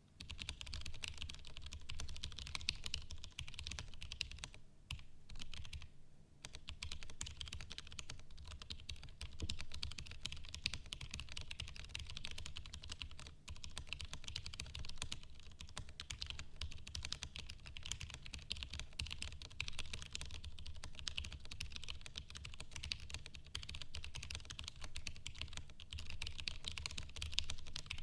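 Continuous fast typing on an Alexi ergonomic mechanical keyboard with franken tactile switches: a dense stream of key clacks with a low thud under each stroke. The typing pauses briefly about five seconds in and again around thirteen seconds.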